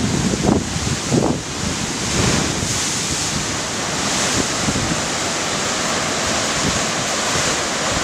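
Ocean surf washing against coastal rocks as a steady rush of water, with wind buffeting the microphone a couple of times in the first second or so.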